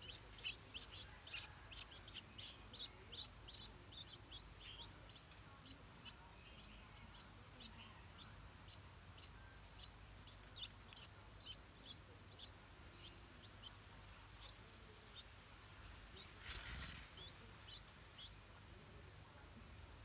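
Stripe-throated bulbul nestlings begging: a rapid series of thin, high-pitched cheeps, about three or four a second, loud at first and thinning out to scattered cheeps. A brief rustle-like noise comes near the end.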